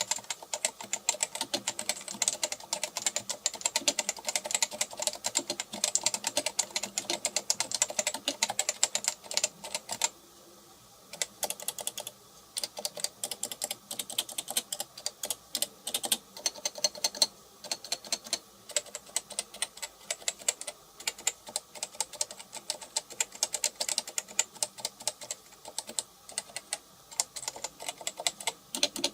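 Typing on a Topre Type Heaven electrostatic capacitive (topre) keyboard: fast, dense keystrokes that stop about ten seconds in, then resume as slower, more scattered key presses.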